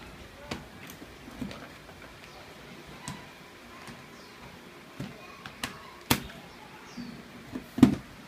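Scattered plastic knocks and clicks of an HP ProBook 450 G0 laptop's case being handled and turned over on a wooden desk, with the loudest knock near the end as it is set down.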